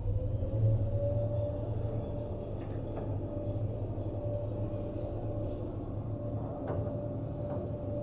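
Old elevator car travelling down: a low rumble with a motor whine that rises in pitch over the first second and then holds steady, with a few light clicks from the car.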